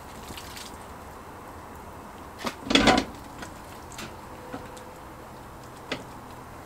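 Raw spatchcock chicken laid down onto a metal grill plate, with one loud slap-like thud about three seconds in, followed by a few light knocks as it is pressed into place.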